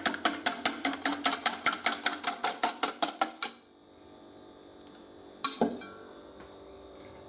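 Three raw eggs with salt and pepper being beaten in a bowl with a metal utensil: a rapid, steady clinking against the bowl, about six or seven strokes a second, that stops about three and a half seconds in. One more single clink follows about two seconds later.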